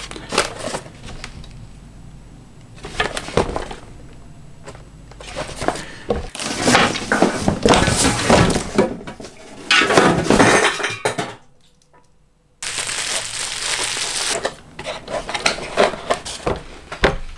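Cardboard lens box being handled on a wooden tabletop: knocks, scrapes and crackling cardboard, then the box's flap being lifted open near the end. The sounds stop briefly just after the middle.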